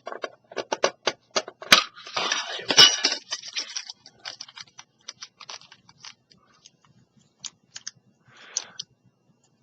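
Small metal tin being worked open and its contents handled: a quick run of clicks, scrapes and light metallic rattles, busiest in the first few seconds, then thinning to scattered ticks.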